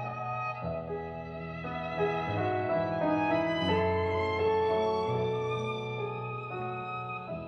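Instrumental music: a violin melody of held notes over a bass line that changes note about once a second.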